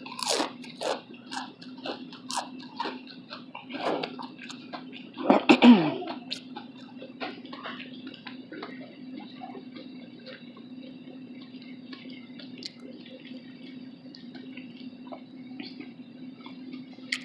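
Close-up chewing of a messy chilli cheese slaw dog: wet mouth noises and lip smacks, busiest in the first six seconds. About five seconds in there is a brief vocal sound sliding down in pitch, and then the chewing goes on more softly over a steady low hum.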